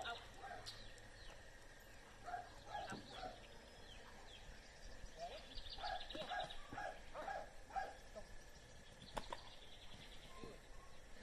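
A dog barking faintly in short runs of several barks, about three a second.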